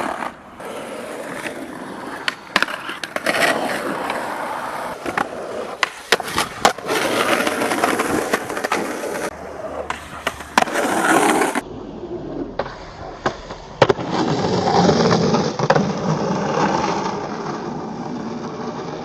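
Skateboard being ridden on concrete: the steady rolling noise of the wheels, broken by many sharp pops, clacks and slaps of the board as tricks are popped and landed.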